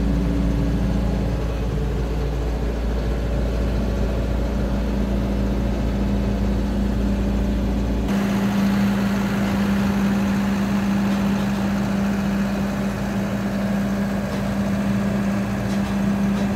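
Doosan 8-ton forklift's D4DD four-cylinder diesel engine idling steadily, heard first from inside the cab and, after about eight seconds, from outside beside the machine.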